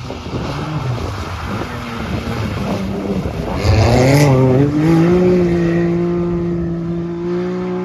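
Off-road rally car engine at speed over a rough, noisy background: the pitch varies at first, then about halfway through the engine revs up hard with a sharp crack. It then holds a steady high-revving note to the end.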